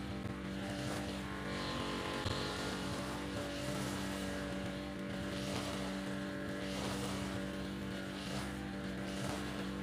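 Petrol brush cutter with a nylon line head running steadily at cutting speed as the line is swept through grass.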